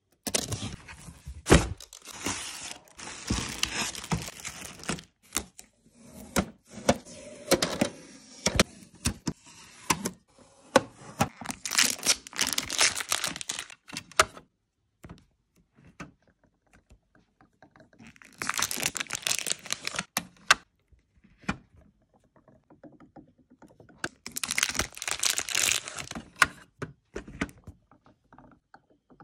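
Unboxing handling noises: a utility knife slicing packing tape on the cardboard box, plastic packaging crinkling and tearing, and clicks and knocks as the Epson printer's plastic ink-tank caps and an ink bottle are handled. There are two quiet stretches in the second half.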